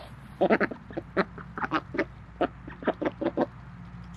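A small flock of Indian Runner ducks foraging in grass, giving a rapid, irregular run of short, soft quacks and chattering calls, several a second.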